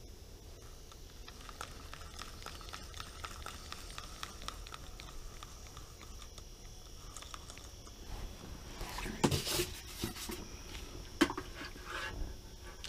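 Light ticking and handling sounds from an inline ice-fishing reel and rod as the line is worked, with a few sharper clicks and knocks about nine and eleven seconds in.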